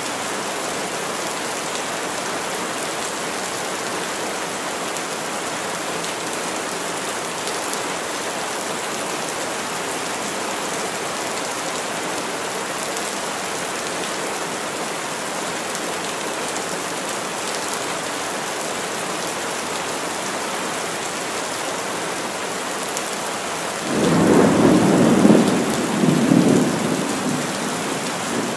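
Heavy rain falling steadily on forest trees. Near the end, a roll of thunder rumbles in, swelling twice before fading away.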